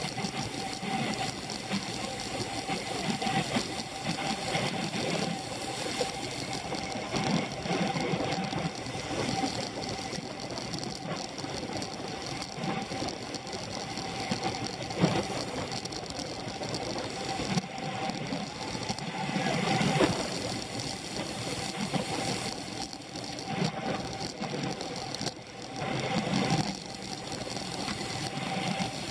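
Road bike ridden at race speed, heard through a handlebar-mounted action camera: steady drivetrain and road noise that swells and dips, with a brief dip near the end.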